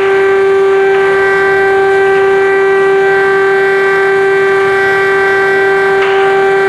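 Civil defence air-raid siren sounding one loud, steady tone held at a constant pitch, the signal of an air-raid alert.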